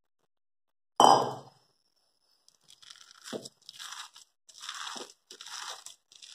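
A sharp metallic clink that rings briefly about a second in. Then a hand squeezes and kneads coarse-ground soaked dal dough with chopped onion and green chilli in a stainless steel bowl: a run of wet, crunchy squeezes, a little under one a second.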